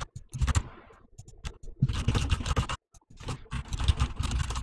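Typing on a computer keyboard: fast runs of keystroke clicks in several spurts with short pauses between them.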